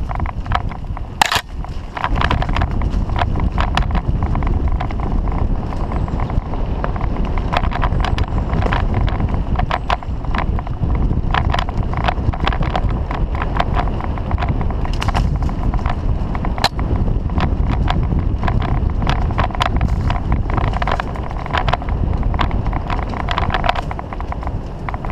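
Mountain bike ridden fast down a dirt forest trail: a steady rumble of wind on the microphone and tyres on dirt, broken by frequent irregular clicks and knocks as the bike rattles over bumps and roots.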